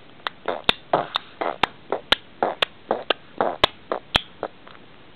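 A baby making rhythmic mouth noises while pulling faces: sharp clicking lip smacks alternating with short breathy puffs, about two a second.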